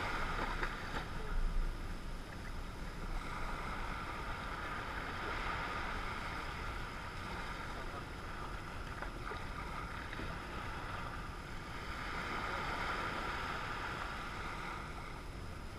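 Small sea waves breaking and washing up a sandy beach, the surf swelling and fading every few seconds, with wind rumbling on the microphone.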